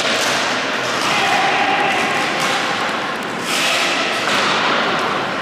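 Hockey match in play in an echoing hall: a steady din of play and players, with knocks and thuds of sticks and ball.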